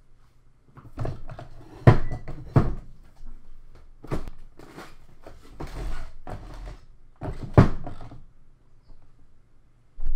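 A series of knocks and thumps in a small room, like something being handled or bumped, with the loudest about two seconds in and again past two thirds of the way, and a rustling stretch between them.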